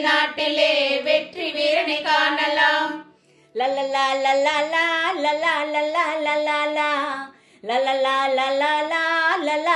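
A bhajan group singing a Tamil Pongal folk song about jallikattu. Three melodic phrases, with two short pauses about three and seven and a half seconds in.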